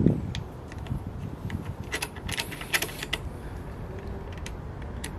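Light metallic clicks and taps, with a denser clatter about two to three seconds in, as a metal clamp is handled and fitted around an electric scooter's front fork tube.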